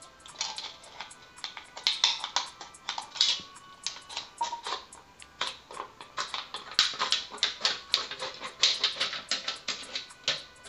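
Sturdy scissors cutting around a thin aluminum soda can: a fast, irregular run of sharp snips and metallic crinkling as the can wall is cut open into a sheet.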